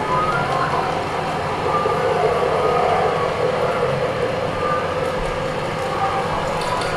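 Improvised experimental sound performance: a dense, steady noisy rumble with short pitched tones popping in and out above it.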